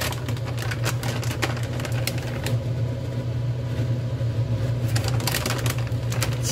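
Dakgalbi (chicken, cabbage and onion in gochujang sauce) crackling lightly in a wok over lowered heat, with scattered small pops, over a steady low machine hum.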